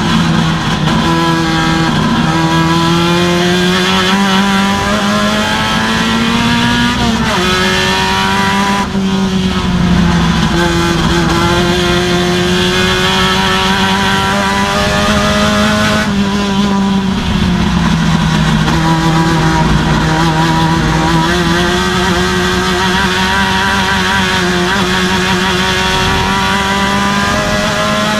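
Procar 2000 touring race car's engine running hard, heard from inside the cockpit. Its pitch climbs steadily under acceleration and drops sharply about seven seconds in and again around sixteen seconds in.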